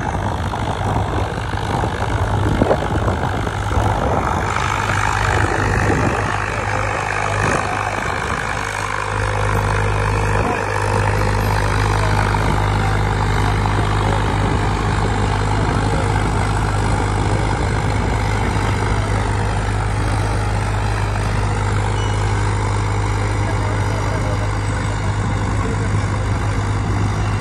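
Diesel tractor engine running steadily under load while pulling a disc harrow through dry soil.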